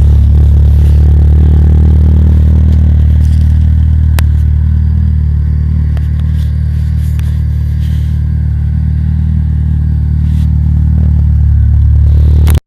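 Citroën Saxo engine idling through its exhaust system: a steady, deep drone that holds one pitch, with a few light clicks about four to seven seconds in.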